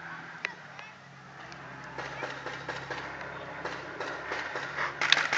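Paintball markers firing on the field: scattered sharp pops, with a denser, louder cluster of shots near the end.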